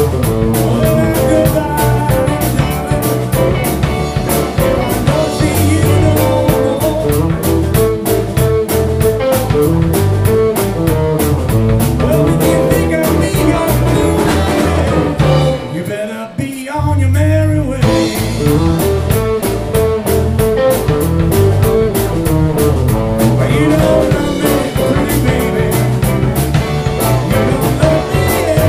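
Live blues band playing an instrumental stretch: electric guitars, bass and drum kit. The band briefly drops out about sixteen seconds in, then comes back in.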